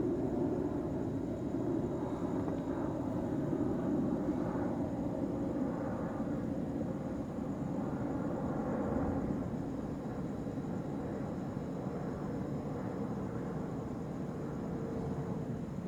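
Long low rumble of distant rolling thunder, easing off a little over the second half.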